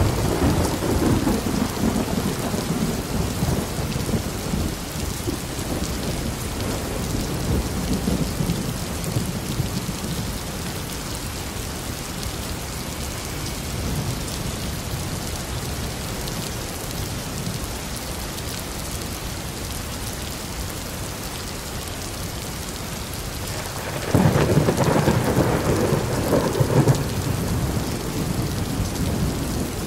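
Steady heavy rain with thunder. A thunderclap breaks right at the start and rumbles away over several seconds. A second, louder peal hits suddenly about 24 seconds in and rolls off a few seconds later.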